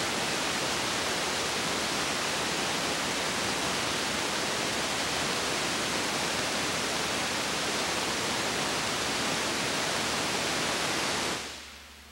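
Steady, even hiss of a silent film transfer with no sound of its own, cutting off about a second before the end as the picture goes black.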